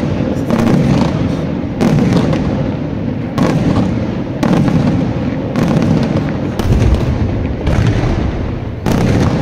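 Daytime aerial fireworks shells bursting with loud bangs, about one a second, each trailing off into a low rumble.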